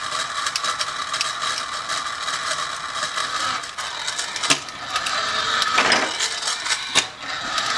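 Radio-controlled toy Datsun 280Z's small electric motor and plastic gearbox running with a fast, steady clatter as the car answers the transmitter signal, with a few louder clicks near the middle and end.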